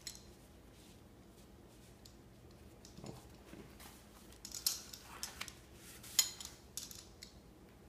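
Pizza cutter wheel running through flour tortillas on a wooden butcher-block board, with a soft knock about three seconds in and a run of sharp clicks and scrapes in the second half as the cutter and tortilla pieces are handled.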